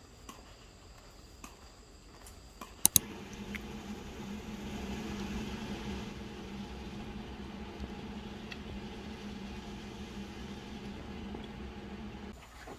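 Two sharp clicks, then a household appliance's motor or fan runs with a steady hum for about nine seconds and stops abruptly.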